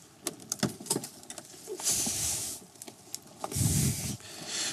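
Footsteps and rustling through leaf litter and undergrowth: a run of sharp clicks and snaps in the first second, then two longer crunching rustles at about two and about four seconds in.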